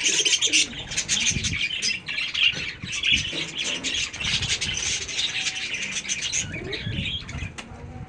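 Many birds chirping and chattering busily together, with wing flutters and short clicks throughout.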